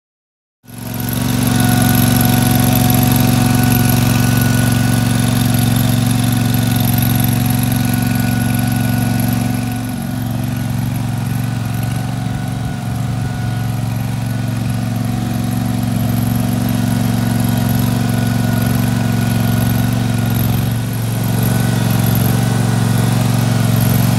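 Small engine of a Steel Green stand-on spreader-sprayer running steadily. It cuts in about half a second in, with brief dips in level twice.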